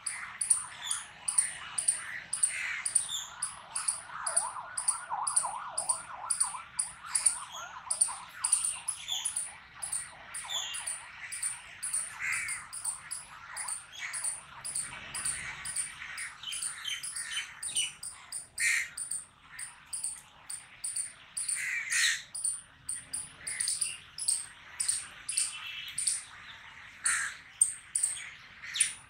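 Outdoor chorus of bird calls: a steady run of short, high chirps, several a second, with louder scattered calls mixed in.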